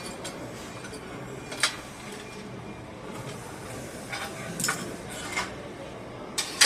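Scattered light metallic clinks and taps from steel pieces being handled during welding work on a metal rack, over a steady background murmur, with a louder cluster of clinks near the end.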